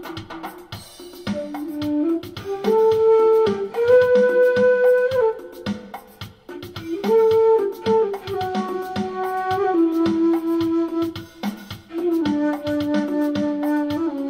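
Flute played through a Zoom 505-II effects pedal with harmonizer, in long held notes that change pitch every second or two, over a steady backing drum beat.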